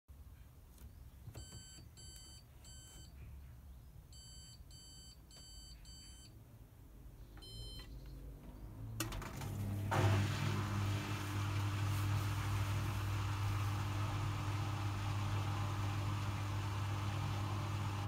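Hoover Dynamic Next washing machine's control panel beeping in short runs of electronic beeps, then a click about nine seconds in and a steady low electric hum with a whirr as the machine starts its empty spin-only programme. The drum stays still, so the hum is the drain pump running before the spin.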